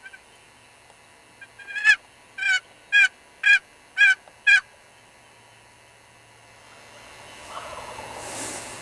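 A turkey box call worked in a run of six short yelps, about two a second, imitating a hen turkey. A rising rushing hiss follows near the end.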